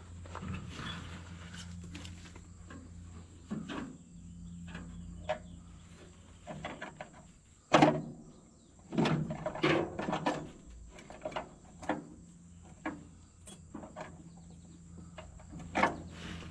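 Scattered metal clanks, knocks and rattles from handling the access door and parts of a New Holland 273 square baler, with the sharpest knock about eight seconds in, over a steady low hum.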